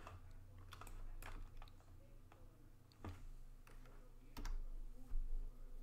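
Computer keyboard keys and clicks tapped a handful of times at irregular intervals, each a short sharp click.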